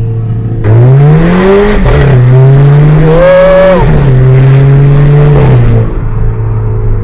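VW Golf Mk6 1.4 TSI turbo four with a free-flowing aftermarket exhaust, heard from inside the cabin, accelerating hard. The engine note rises from about half a second in and drops sharply twice as the DSG gearbox upshifts, giving the upshift sound the new exhaust was made to bring out. The driver lifts off near the end and it settles back to a steady cruise.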